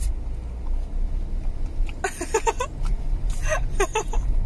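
A woman laughing in short bursts, twice, over the low steady hum of a car engine idling, heard inside the car's cabin.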